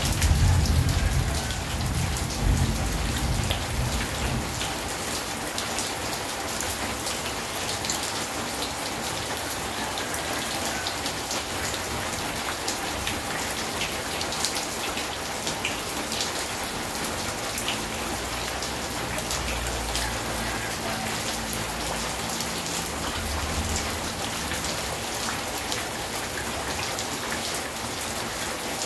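Steady rain falling on a corrugated roof and a wet concrete yard, with water dripping from the eaves and many sharp drop ticks. A louder low rumble swells during the first few seconds, and fainter low swells come later.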